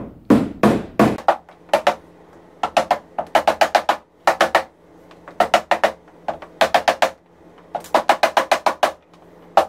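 Rubber mallet tapping the plastic top piece of a Rubbermaid housekeeping cart down onto its aluminium posts, in quick runs of four or five light taps with short pauses between.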